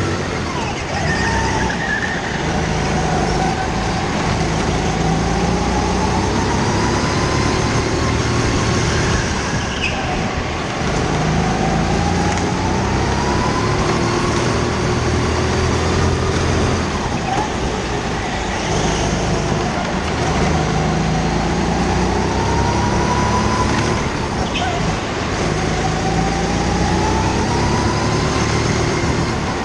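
Go-kart engine heard from onboard, its pitch climbing as the kart accelerates and dropping off into each corner, over and over around the lap.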